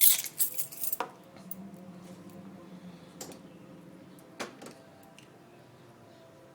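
Trunk lid of a 2000 Mercedes S500 being lowered onto its latch: a clatter of clicks at first, a sharp click about a second in, then a faint steady low hum for a few seconds. The close assist, disabled because of an air leak in its pneumatic system, does not pull the lid shut.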